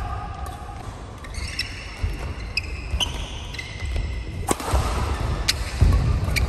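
Badminton rally on an indoor court: sharp cracks of rackets striking the shuttlecock every second or so, with short squeaks of court shoes and thudding footsteps.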